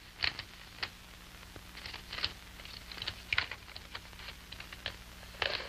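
Paper rustling and crinkling in short, irregular bursts as a letter is handled and unfolded, over a faint steady hum.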